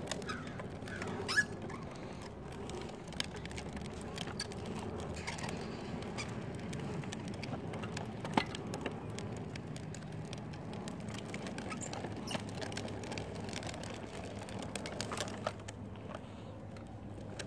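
A child's tricycle rolling slowly over rough asphalt: a steady low rumble with many small scattered ticks and clicks, and one sharper click about eight seconds in.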